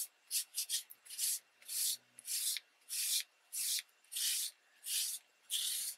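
A soft cloth rubbed back and forth over a damp, embossed magazine-paper image in short, even strokes, about two a second, lifting the ink loosened by the alcohol-and-water spray.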